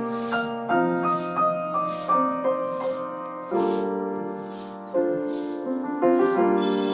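Background music: a gentle keyboard melody of held, changing notes over a soft shaker beat about twice a second.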